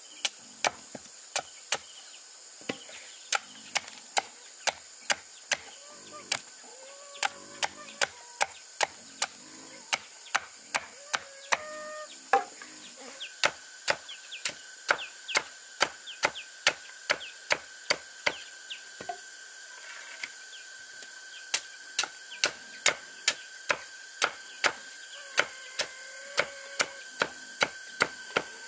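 Steady chopping, a blade striking wood or bamboo about twice a second, with a few brief pauses. Birds call faintly in between.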